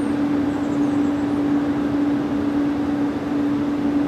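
Railway locomotive running steadily: a constant low hum on one unchanging tone over a steady mechanical rush.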